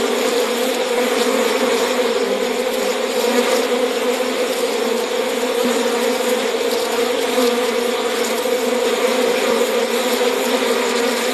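Bees buzzing in a steady, continuous drone, the buzz centred on one low pitch.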